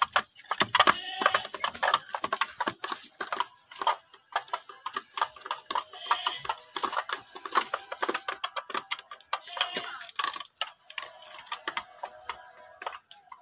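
Young turkeys pecking at feed in a crate, making quick irregular tapping and clicking, with occasional calls.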